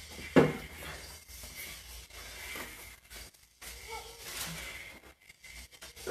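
Quiet room with faint small knocks and a faint voice, and one brief louder sound about half a second in.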